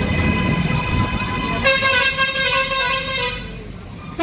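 Street traffic rumbling, then a loud vehicle horn about one and a half seconds in, held for about a second and a half.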